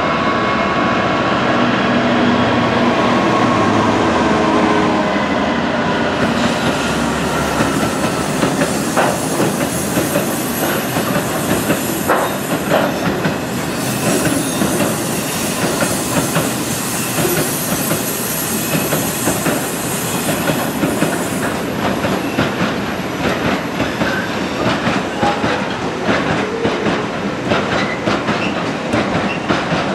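Class 66 diesel freight locomotive passing with its two-stroke V12 engine running steadily for the first few seconds. Then a long train of freight wagons loaded with steel rolls by, its wheels clicking steadily over the rail joints with a hiss above them.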